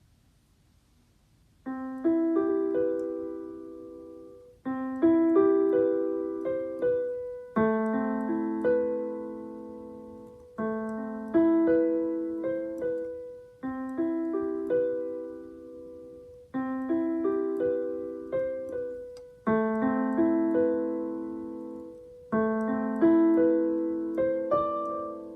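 Piano playing a C major seventh chord about eight times, roughly every three seconds. Each time the notes come in one after another in quick succession and then ring and fade.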